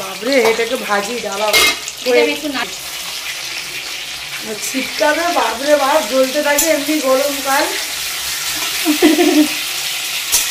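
Chicken pieces sizzling as they fry in hot oil in a pan, a steady crackling hiss with a few sharp clicks. A voice sounds over it at times.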